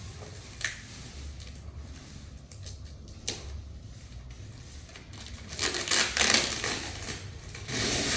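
Packaging crinkling and rustling as it is handled, in loud bursts over the second half, with a couple of sharp clicks earlier over a low steady hum.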